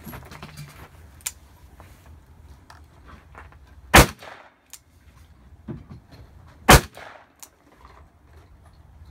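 Two gunshots from a .44 Special revolver fired single-handedly in turn, about three seconds apart, each with a short echo trailing off; a few light clicks come between them.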